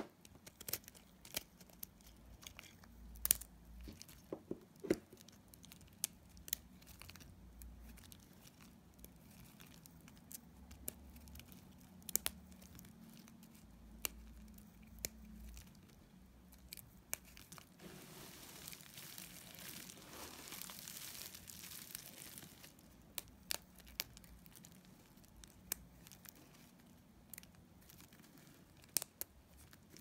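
A blade cutting dry bar soap, with many crisp cracks and snaps as slivers come off. A little past the middle, hands rustle and crunch through a heap of dry soap shavings for a few seconds.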